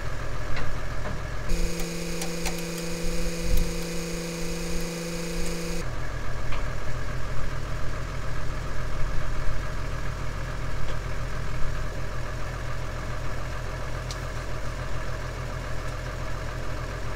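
Case Puma 180 tractor's six-cylinder diesel engine idling steadily. For about four seconds, starting a second and a half in, a steady whine of several tones replaces the engine's low pulsing.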